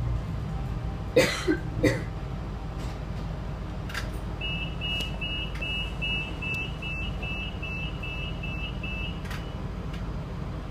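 Electronic warning beeps sound about twice a second for around five seconds over the low steady rumble of the stationary diesel railcar. These are typical of the door-closing warning at a station stop. A passenger coughs twice about a second in.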